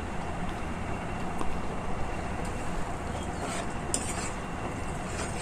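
Metal slotted turner stirring and scraping a thick chicken filling around a frying pan, with a few short scrapes and clinks against the pan, over a steady hiss.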